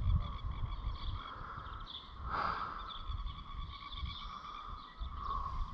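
Quiet outdoor background noise: a low rumble with faint high chirps over it, and a brief rustle about two seconds in.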